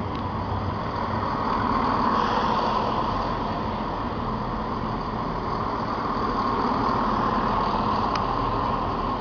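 Passenger train running at Peterborough station, a steady engine-and-rail noise with no clear start or stop, and a short high tick about eight seconds in.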